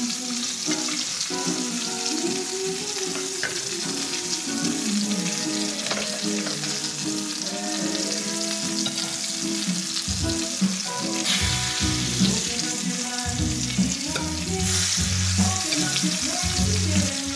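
Steak steadily sizzling as it fries in olive oil and butter in a very hot pan, with background music underneath.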